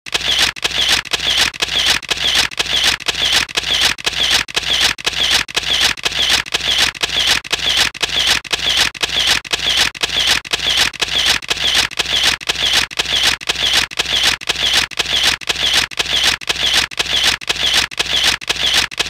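A steady rhythmic train of short hissing noise pulses, a little over two a second, laid on as the video's soundtrack.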